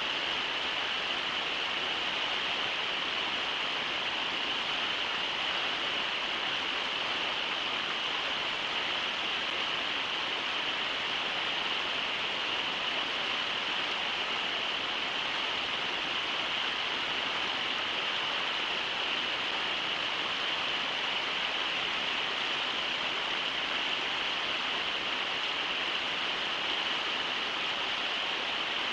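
Steady rushing of river water, an even unbroken hiss with no other events.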